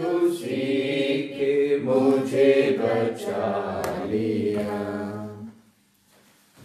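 A Hindi devotional hymn being sung, with long held notes, ending about five and a half seconds in.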